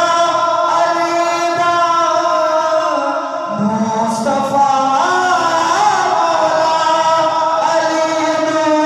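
A man singing a devotional naat into a handheld microphone, amplified through the hall's PA, holding long notes, with a new phrase starting about three and a half seconds in.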